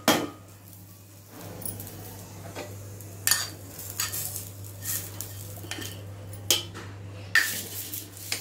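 Steel spoon scraping and tapping a small non-stick pan over a steel mixer-grinder jar to knock fried onions into it: a loud pair of knocks at the very start, then separate sharp clinks and scrapes about a second apart.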